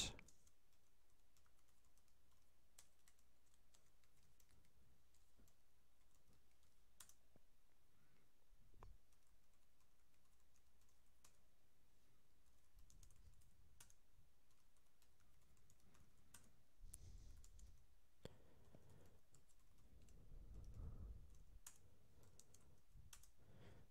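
Faint, scattered computer keyboard keystrokes, typed as single clicks spread out over the whole stretch.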